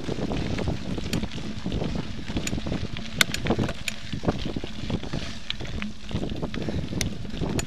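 Wind buffeting the microphone of a camera on a mountain bike riding over gravel, over a low rumble of tyres on the loose surface. Frequent small clicks and knocks come from the bike rattling over stones, with one sharper knock about three seconds in.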